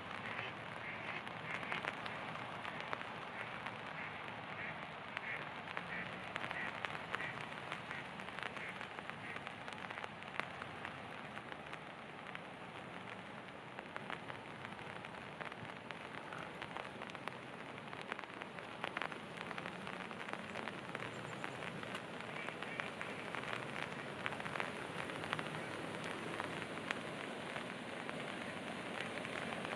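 Steady rain falling, a dense patter of many small drop taps.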